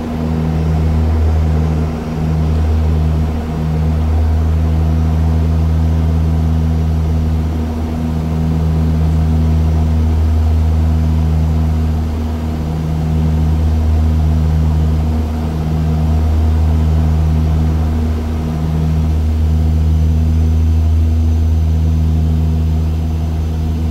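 Twin turboprop engines and propellers of a de Havilland Canada Dash 8-100 droning steadily in the cockpit on final approach, a loud low hum that swells and dips slightly now and then.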